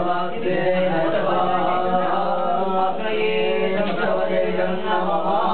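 Sanskrit mantras chanted by priests during a homa fire offering, a continuous recitation held on steady pitches.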